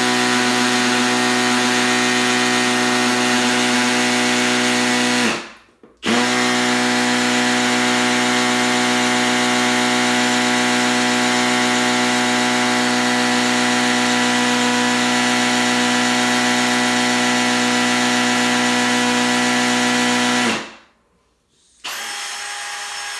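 Milwaukee 2704-20 M18 cordless hammer drill in hammer mode, running at full speed as it bores a 3/16-inch masonry bit into concrete. It stops briefly about five seconds in, then runs steadily again until it spins down near the end, and a quieter sound follows.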